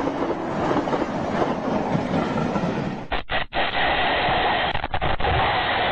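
Passing train with a steady noisy rumble. About three seconds in it cuts off sudden, giving way to a steady hiss with a faint hum from a lower-quality recording.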